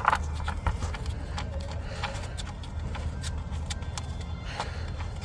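Scattered light clicks and taps of a new plastic PCV valve and its hose being fitted by hand, the sharpest right at the start, over a steady low rumble.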